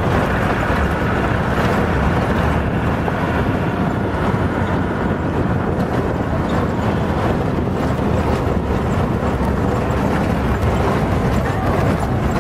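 Safari vehicle's engine running steadily, heard from on board, a continuous low hum with no break.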